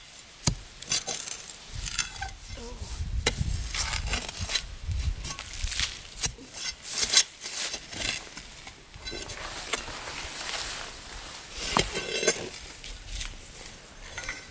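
A steel bar repeatedly jabbed into packed soil around a small rock, giving many sharp clinks and scrapes of metal on stone and grit as it loosens the rock.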